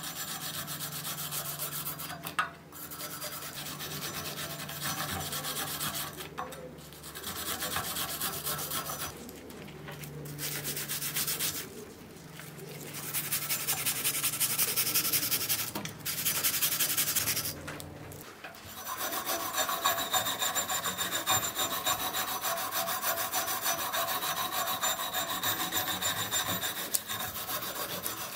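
Abrasive rubbing and scraping in runs of a few seconds with short breaks between, over a steady low hum. In the last ten seconds the rubbing goes on without a break and a thin whine joins it.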